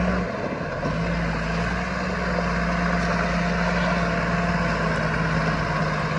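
Diesel engine of a Tata 715 4x4 truck with a Tata Cummins engine, running steadily as the truck crawls over rocks through a streambed. It settles into a steady drone about a second in.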